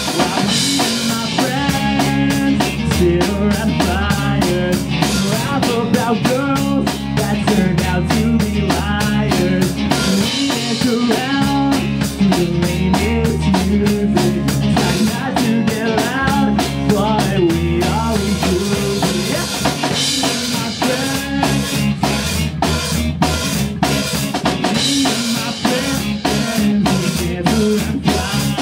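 A pop-punk band playing live, with a full drum kit keeping a steady beat on bass drum and snare under a bass line and melodic parts.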